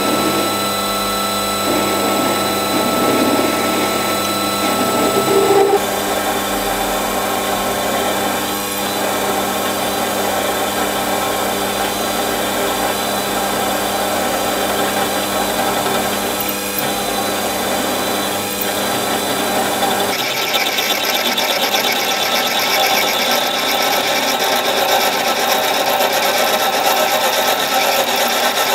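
Warco WM180 mini lathe running steadily while a tailstock-held centre drill and then a twist drill bore the centre hole in a Stuart S50 steam engine's cast flywheel, drilling out to 6 mm ahead of reaming. The motor's steady whine runs under the cutting noise, and the sound changes abruptly about 6 and 20 seconds in.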